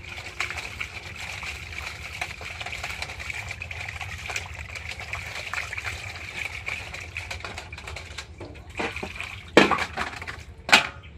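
Water splashing and trickling with many small clicks, over a steady high-pitched whine. Two sharp knocks come near the end.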